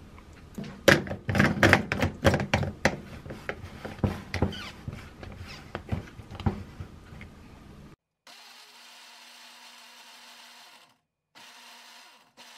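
Rapid plastic clicks and knocks as the blade base is screwed onto a plastic blender jar and the jar is handled. Then a steady, fairly quiet blender motor running.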